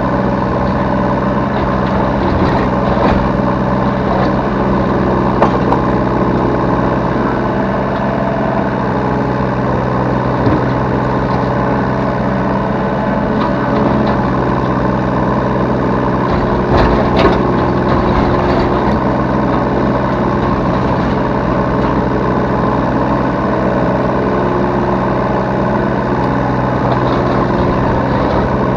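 Yanmar B3 Sigma 3-tonne mini excavator's diesel engine running steadily, heard from the operator's seat, with a few short sharp knocks about five, ten and seventeen seconds in.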